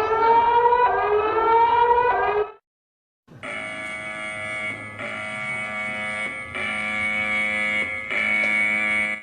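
Electronic emergency-alert tones. A rising, siren-like tone stops about two and a half seconds in. After a short gap, a steady chord of several electronic tones sounds in pulses of about a second and a half.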